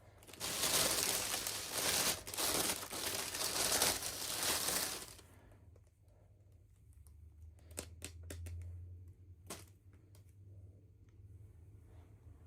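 Plastic packaging crinkling and tearing as it is opened by hand, a dense crackle for about four and a half seconds, then a few light clicks and taps near the end.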